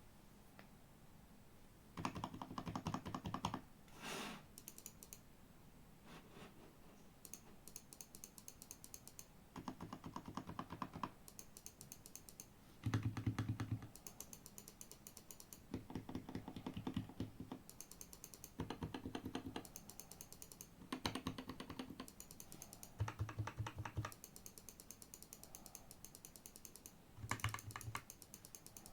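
Mechanical keyboard with Gateron G Pro Milky Yellow 50 g linear switches and XDA-profile keycaps, typed in quick bursts of rapid keystrokes with short pauses between. Some bursts are deeper and louder than others.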